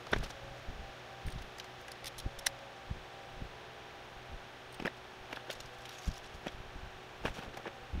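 Hands handling insulated wires of an engine wiring harness: light rustling with scattered small clicks, the sharpest just at the start, over a faint steady hum.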